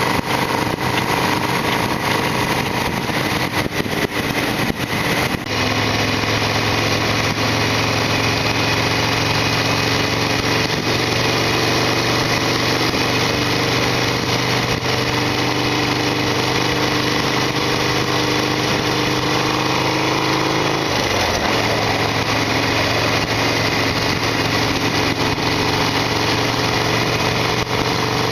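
Harley-Davidson Sportster XL1200R's V-twin engine running steadily while the bike is ridden, over a steady rush of noise. The engine note changes about five seconds in, dips briefly about two-thirds of the way through, and rises in pitch near the end.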